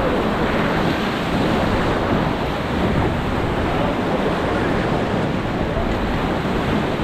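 Whitewater river rapids rushing steadily, a dense, even rush of water with wind buffeting the microphone.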